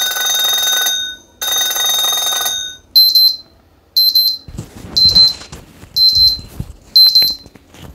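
Core Innovations Galileo alarm clock sounding its built-in alarm tones as they are cycled through. First come two held electronic tones, each about a second long, then a high beep repeating about once a second.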